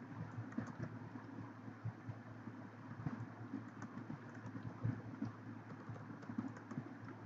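Typing on a computer keyboard: irregular quick key clicks over a steady low hum.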